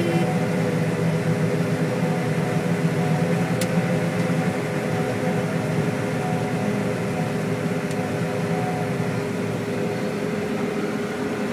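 John Deere STS combine harvester running steadily, a constant drone with several steady tones.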